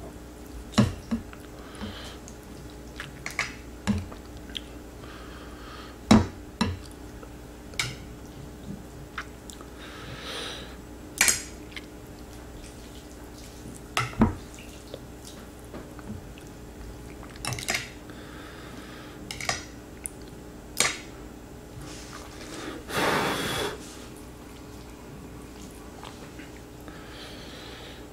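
Metal chopsticks clicking and clinking against a large glass bowl of ramen as noodles are stirred and lifted, with wet slurping sounds between; the loudest is one slurp of about a second near the end.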